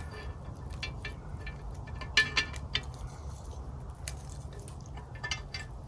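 Scattered light clicks and knocks, one sharper than the rest about two seconds in, as a metal grill grate is handled and levelled over campfire coals.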